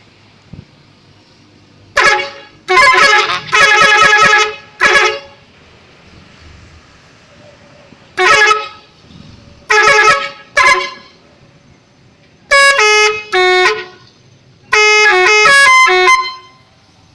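Multi-note 'telolet' bus horn sounding in loud blasts: first a string of short chord-like blasts, then, from about twelve seconds in, two quick stepping tunes of changing notes.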